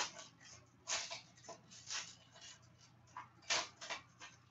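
A 2014 Panini Prestige football card pack being opened and its cards handled: a run of short rustles and scrapes of wrapper and card stock.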